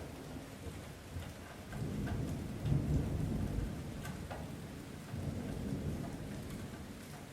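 Light rain falling with scattered drips, and distant thunder rumbling low, swelling up about two seconds in and rolling on in a second, weaker swell.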